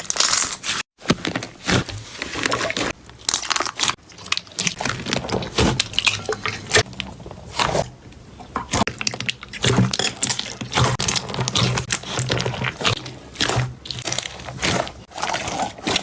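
Slime being squeezed, stretched and poked by hand, giving a dense stream of irregular sticky clicks and pops.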